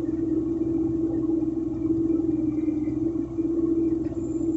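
Diesel engine of a Plasser & Theurer 09-32 CSM track tamping machine running with a steady hum over a low rumble.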